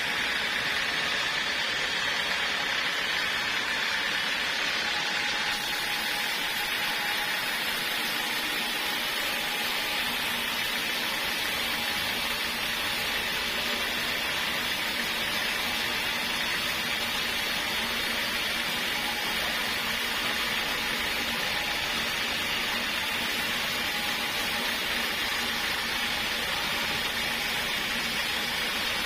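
Portable sawmill running steadily with an even, hissing machine noise.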